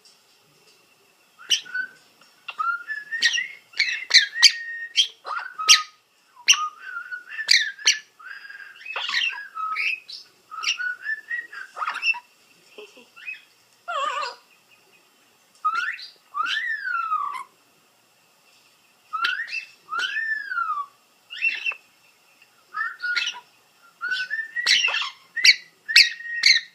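Blue-fronted Amazon parrot whistling and chirping: many short whistles that sweep up and down in pitch, some arching up then falling, in bursts with short pauses between them.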